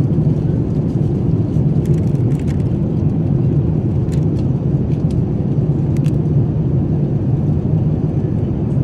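Steady low rumble of a Boeing 787-9 airliner heard inside the cabin: engine and airflow noise holding even throughout, with a few faint light clicks.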